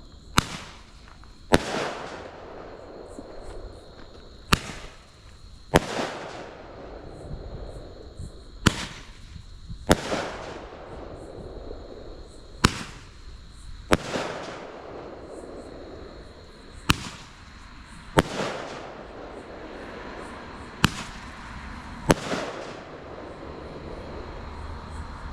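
Roman candle firing six shots about four seconds apart, each a sharp pop followed about a second later by a second sharp bang, with a short hiss after each.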